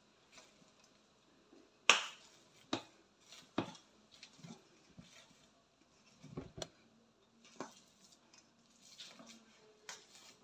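Metal masher and fork knocking and scraping against a stainless steel bowl while potatoes are mashed: irregular sharp clicks about a second apart, the loudest about two seconds in.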